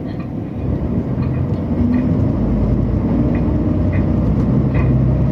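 Diesel railcar (KTR8000 'Tango no Umi') engine and running noise heard from inside the cabin while the train runs, the engine's drone growing louder about two seconds in.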